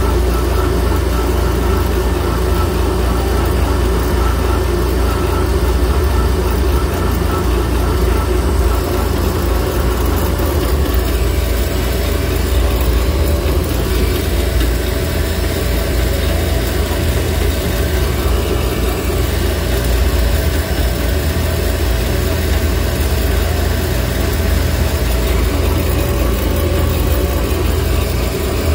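Alternator test bench running steadily, spinning a J2Fab 300 A extreme-output alternator with an external regulator: an even mechanical drone. The alternator is being brought up to charging output, its current rising as the regulator voltage is turned up.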